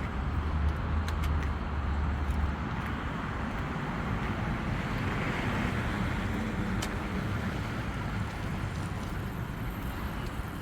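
City street ambience: a steady wash of road traffic noise, with a low wind rumble on the microphone for the first couple of seconds and a few faint clicks.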